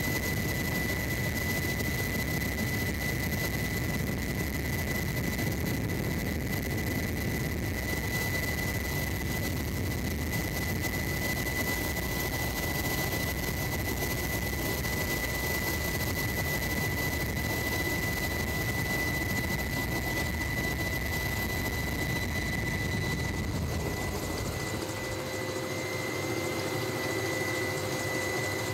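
Helicopter hovering, heard close from the open cabin door: a steady, dense rotor and turbine noise with a constant high tone over it. Near the end the deepest rumble drops away and a few steadier, lower tones come in.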